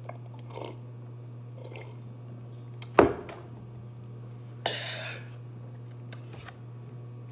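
Faint sips and swallows of iced soda from a tall glass, then a sharp knock about three seconds in as the glass is set down hard on the table. A loud breathy exhale follows about a second and a half later.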